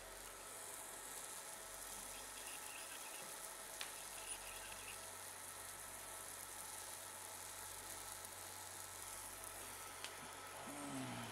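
50 W fiber laser ablating a 0.8 mm sterling silver strip: a faint, steady, high sizzling hiss as the beam cuts into the metal. A short low sound falling in pitch comes near the end.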